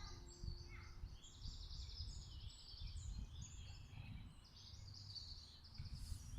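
Birds chirping in rapid, high trills, many notes overlapping, over a low rumble.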